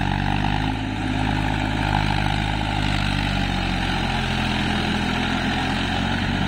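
Massey Ferguson 290 tractor's diesel engine running steadily under load as the tractor works on cage wheels through flooded paddy mud.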